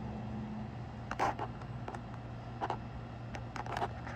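Scattered raindrops tapping irregularly, about half a dozen sharp taps with the loudest about a second in, over a steady low hum.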